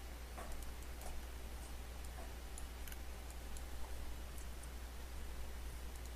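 Faint, scattered computer mouse clicks over a steady low electrical hum from the recording setup.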